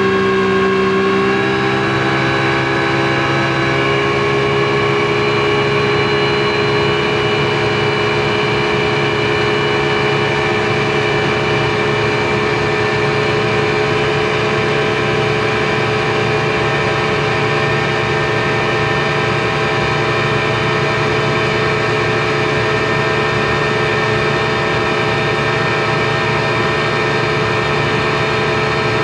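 Speedboat engine running at steady cruising speed, heard from inside the boat's cabin: a constant drone whose pitch shifts slightly in the first few seconds and then holds steady.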